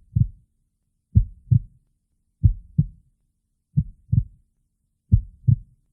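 Heartbeat sound effect: low double thumps in lub-dub pairs, repeating steadily about once every 1.3 seconds.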